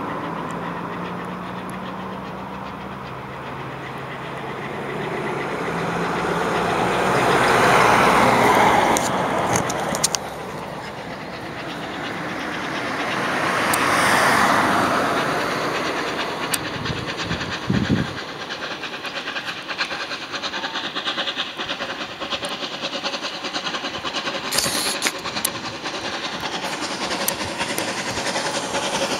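Bulleid Battle of Britain class steam locomotive 34067 'Tangmere' passing with its train. The noise swells twice as the engine comes near. Then, from about halfway, the carriages click steadily over the rail joints.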